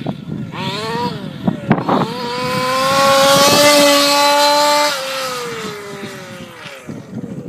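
Rooster Tail 28.5 engine running at high revs: it winds up after about two seconds, holds a steady high pitch, then drops off about five seconds in. A couple of sharp knocks come just before it winds up.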